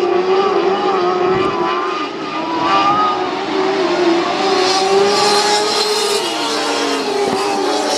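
A field of lightning sprint cars racing, several high-revving engines sounding at once, their pitch rising and falling.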